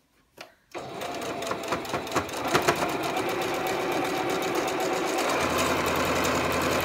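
Domestic sewing machine stitching a quarter-inch seam through pieced cotton. It starts up about a second in after a brief stop, then runs steadily with a rapid needle rattle, and a deeper motor hum joins in near the end.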